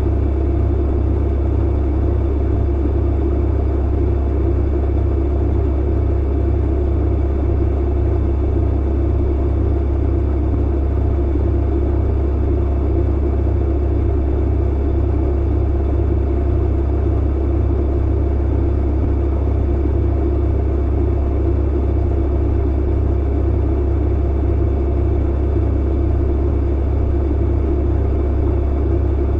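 Clothes dryer running: a steady, unchanging low drone with a noisy whir above it.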